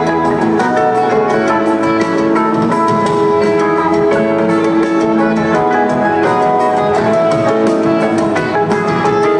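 Live rock band playing steadily: electric guitars, bass and drum kit, heard from the audience in a concert hall.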